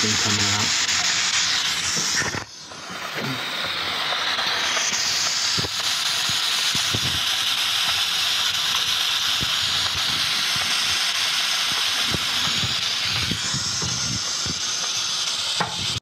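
Steam hissing steadily out of the main air vent on a steam boiler's main, dipping briefly about two and a half seconds in. This is the leaking main vent that lets the boiler lose water faster than usual.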